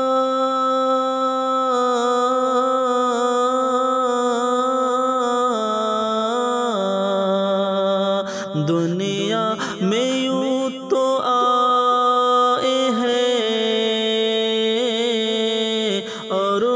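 Naat singing: a voice draws out long held notes of the line, then slides and turns between pitches in an ornamented, melismatic run from about six seconds in.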